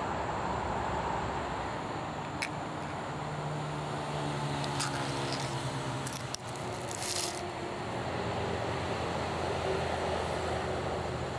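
Easy-open ring-pull lid of a cake can being opened: a sharp click as the tab is lifted about two seconds in, a few light ticks, then a short scraping tear as the metal lid peels back about six seconds in, over a steady low background rumble.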